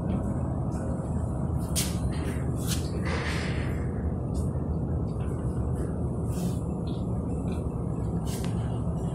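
Steady low mechanical rumble, like machinery running, with a few sharp clicks scattered through it.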